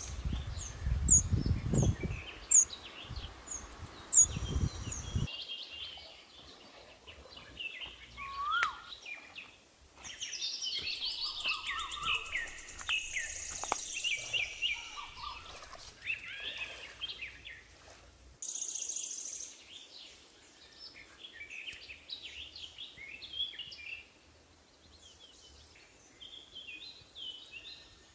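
Several birds singing and chirping, many short varied calls overlapping. A low rumbling noise runs under them for the first five seconds and cuts off abruptly.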